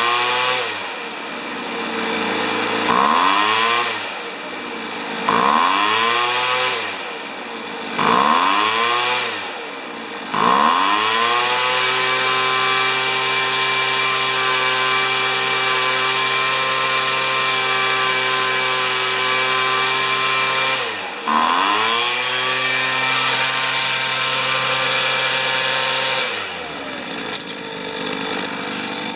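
Weed Eater leaf blower's small two-stroke engine being revved: the throttle is blipped up and let fall back four or five times, then held wide open with one brief dip, before dropping back to a lower speed near the end. The owner judges from its white spark plug that the engine is running lean.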